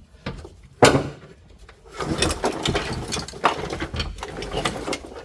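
A sharp knock about a second in, then a busy run of plastic clicks and rattles as the steering lock module and its wiring harness plugs are handled inside the car.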